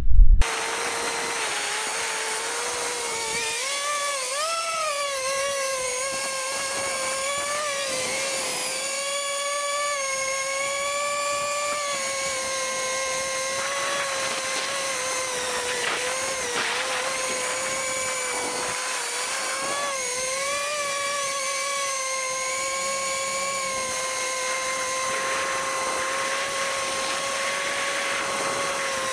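Small FPV quadcopter's electric motors and propellers whining, picked up by the camera carried on the drone. The whine is high and steady, wavering in pitch with the throttle, with a brief rise about four seconds in.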